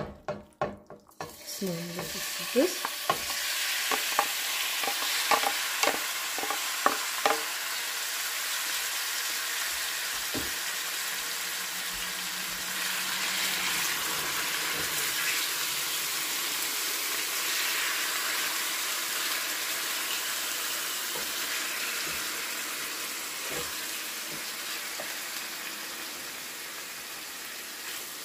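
Diced raw chicken breast sizzling in hot oil in a frying pan, the sizzle rising a couple of seconds in as the pieces go in and then settling into a steady frying hiss. A run of sharp clicks and knocks over the first several seconds comes from the pieces dropping and a wooden spatula stirring them.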